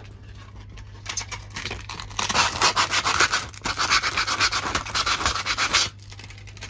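Coarse sandpaper rubbed by hand over the glitter-coated painted edge of a cabinet door in quick back-and-forth strokes. It starts about a second in, gets louder from about two seconds, and stops near the end.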